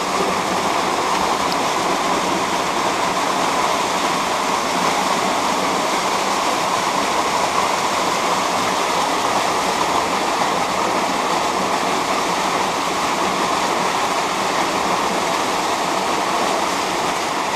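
Small waterfall pouring down a narrow rock chute close by: a steady, unbroken rush of falling and splashing water.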